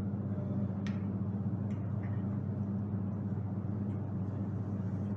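Egg-coated slices of bread frying in hot oil: a steady sizzle with a few small pops, over a constant low hum.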